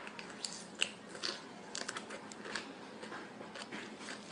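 A person biting and sucking on a lemon slice: faint wet clicks and smacks, irregular and scattered, over quiet room noise.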